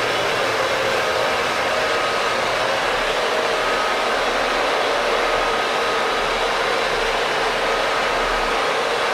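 Steady engine-room machinery noise aboard a container ship: a loud, even rushing hiss with faint steady hums that come and go.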